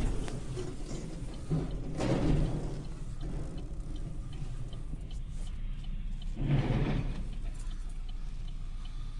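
A car's indicator relay ticking at an even pace inside the cabin over low road rumble, with two short swells of road noise, about two seconds in and again past the middle.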